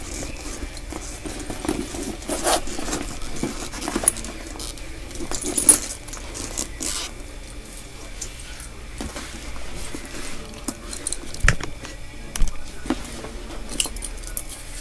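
Louis Vuitton Speedy handbag being handled and slung over the shoulder: rustling, with scattered clinks and taps of its metal hardware, lock and key jangling.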